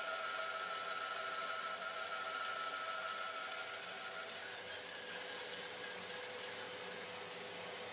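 Makita LB1200F band saw running and cutting a wooden board, a steady whine over the rasp of the blade; the whine weakens and the sound changes about halfway through, when the cut finishes.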